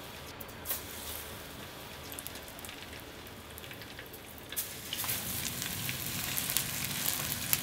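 Hot oil sizzling and crackling in a frying pan as starch-coated fluke pieces are laid in. The sizzle grows louder and more crackly a little past halfway, as more pieces go into the oil.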